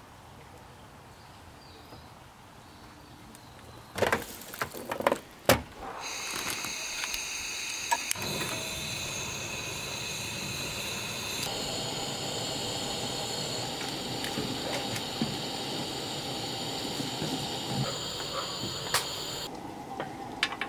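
A few sharp clicks and knocks, then a steady hiss with a faint whistling tone in it that runs for about thirteen seconds and stops shortly before the end.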